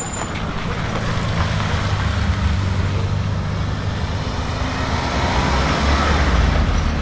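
A BMW car's engine and exhaust running at low revs as the car rolls past slowly, growing a little louder toward the end.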